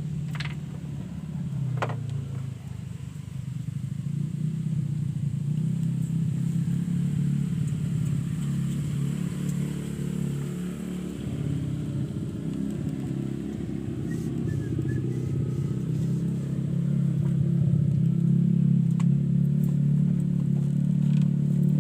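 An engine running steadily with a low hum, growing louder in the last few seconds.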